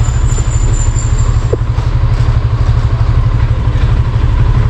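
Motorcycle engine idling steadily at a standstill, a fast, even low pulsing from the exhaust.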